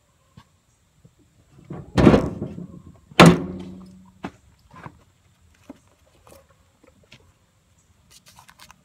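Two loud thuds about a second apart, the second with a short ringing tail, followed by a few faint clicks and knocks.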